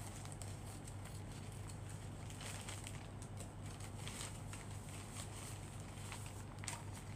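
Faint crinkling and snipping of a plastic courier pouch being cut open with scissors and handled: scattered small clicks and rustles, a little busier in the middle, over a steady low hum.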